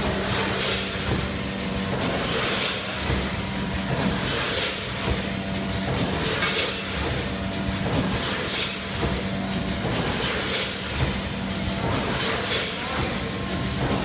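Premade-bag packaging machine running: short bursts of air hiss recur about every two seconds, keeping time with its bag cycle, over a steady motor hum.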